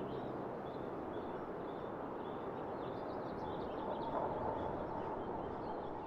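Open-air countryside ambience: a steady hiss of background noise with small birds chirping again and again.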